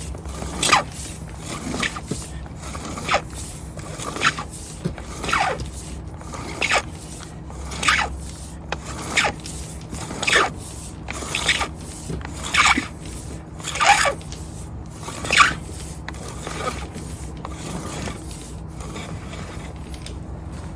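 2/0 electrical wire being shoved by hand through 2-inch pipe, scraping along inside it in repeated pushes about once a second, each a rasping swish that falls in pitch. The pushes fade out after about sixteen seconds.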